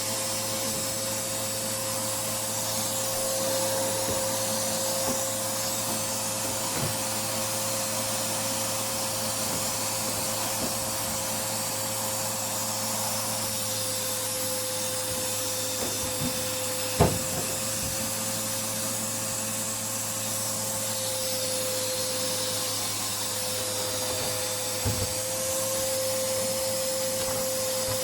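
Vacuum cleaner running steadily with a constant motor whine, its hose nozzle sucking lint out of a tumble dryer's filter housing. A single sharp knock comes about two-thirds of the way through, and two lighter knocks follow near the end.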